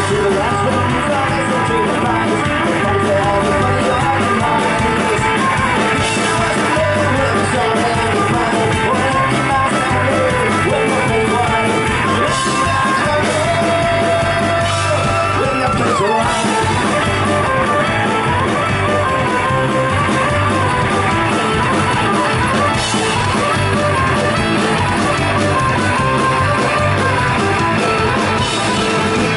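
Folk-punk band playing live through a PA: guitars, bass and drums with a melody line over them, steady and loud throughout.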